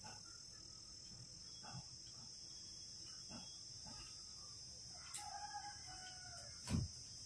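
A rooster crows faintly once, a drawn-out call about five seconds in, over a steady high insect chirr. A single knock sounds near the end.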